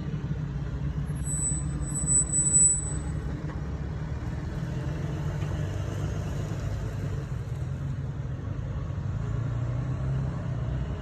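Nissan 350Z's 3.5-litre V6 running steadily with a low rumble, swelling briefly about two seconds in; the car is back up and running after its mass airflow sensor and starter were replaced.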